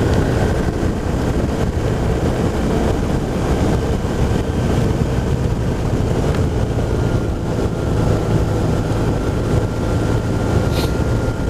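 BMW R1200RT boxer-twin motorcycle running at steady cruising speed, its engine hum mixed with constant wind rush on the microphone.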